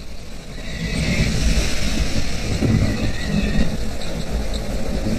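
Gusting wind of a tropical squall: a steady rushing noise with low rumbling swells.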